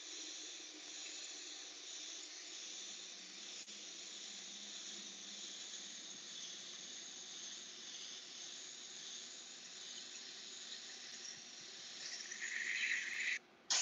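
Iwata Eclipse airbrush spraying paint: a steady hiss of air, louder for about a second near the end before it cuts off suddenly.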